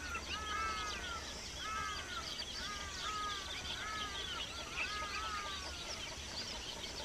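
Bird calls: a series of arching whistled notes, each rising and then falling, given in quick runs again and again, over many short high chirps from other birds.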